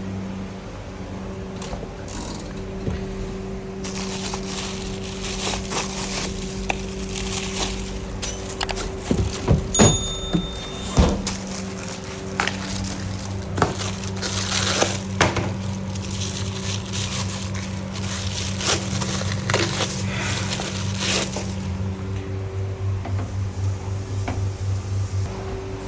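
Kitchen work: irregular knocks, clicks and clatter over a steady hum, busiest in the middle.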